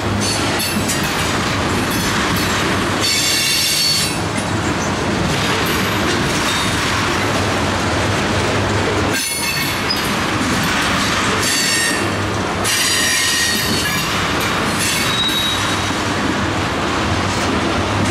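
Freight train of ethanol tank cars rolling past, steel wheels running steadily on the rails, with a high-pitched wheel squeal that comes and goes and a single sharp knock about halfway through.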